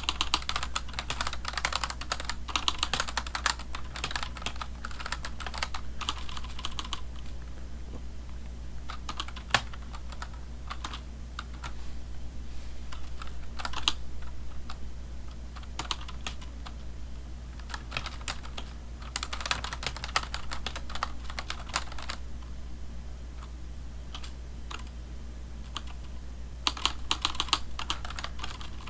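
Typing on a computer keyboard: runs of rapid key clicks in the first seven seconds, around twenty seconds in and near the end, with scattered single keystrokes between, over a low steady hum.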